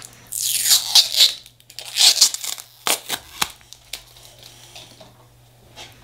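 Blue protective plastic film being peeled off a metal nail stamping plate, a ripping, hissy peel in two long pulls. A few sharp clicks follow as the plate and film are handled.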